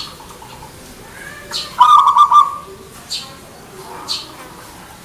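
Zebra dove (perkutut) cooing: one loud, rapidly pulsed coo about two seconds in, with fainter coos before and after it. Short high chirps come about every one and a half seconds.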